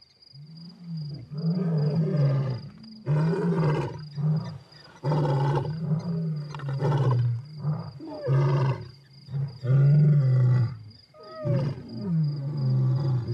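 Lions roaring: a long run of deep calls, each about a second long, with short gaps between them.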